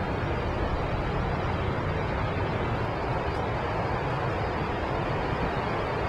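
Steady roar of heavy ocean surf breaking on a beach, with wind rumbling on the microphone.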